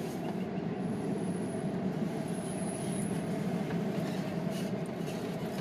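A car driving at a steady pace, its engine and tyre noise heard from inside the cabin.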